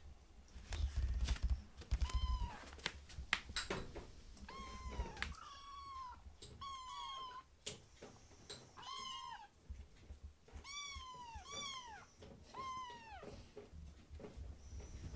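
Two young kittens meowing for food, a run of about ten short high calls that each rise then fall in pitch. Before the calls start, a few sharp clicks and knocks are the loudest sounds.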